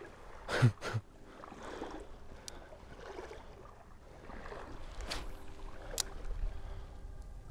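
Water sloshing in a shallow creek, with two sharp knocks close together about half a second in and a few fainter clicks later.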